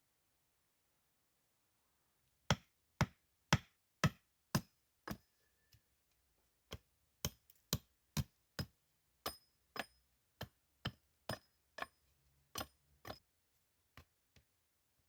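A hand tool striking over and over in a steady series of sharp knocks, about two a second, with a short pause partway and the first few blows loudest, as in hammering or chopping on a shelter build.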